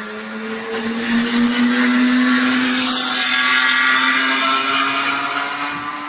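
Ferrari 2014 Formula 1 car's 1.6-litre turbocharged V6 running, its engine note holding almost steady in pitch. It grows louder about a second in and fades a little near the end.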